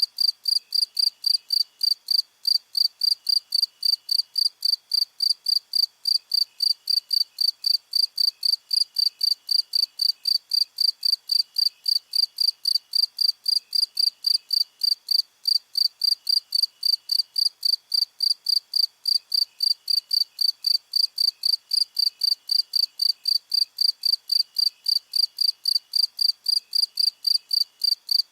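Crickets chirping in a steady, even rhythm, about three high chirps a second. A fainter, lower chirping comes and goes every couple of seconds behind it.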